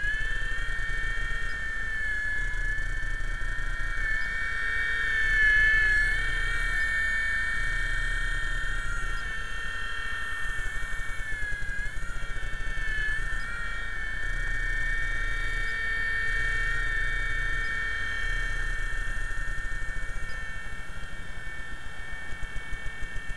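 RC helicopter's motor and rotor whining at a steady high pitch in flight, the pitch dipping briefly a couple of times about halfway through.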